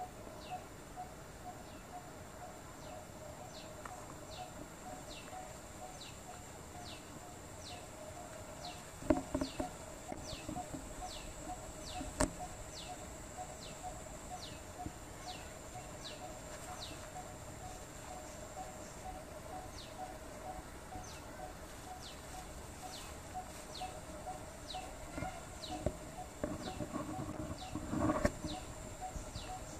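Tropical outdoor ambience: a bird repeats a short falling note slightly more than once a second over a steady high insect drone, with a faint low rapid pulsing call beneath. A few sharp knocks come about a third of the way in, and rustling near the end.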